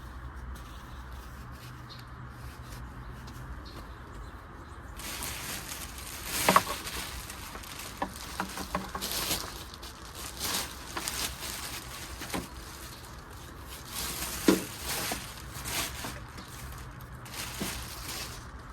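Hand-tool work on a car's power steering hose fittings: scattered clicks, knocks and metal clinks, with two sharper clanks. A faint steady hum sits under the first few seconds.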